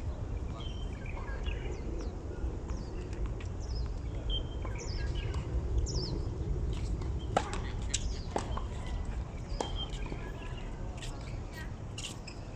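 Birds chirping in many short calls over a steady low rumble, with several sharp knocks in the second half.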